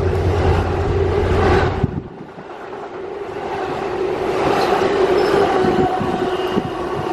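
NJ Transit train of Bombardier ALP-45DP locomotive and bilevel coaches passing close by, with loud rolling wheel-on-rail noise and a steady electric hum. The low drone drops away suddenly about two seconds in, and the rolling swells again before a run of sharp wheel clicks near the end.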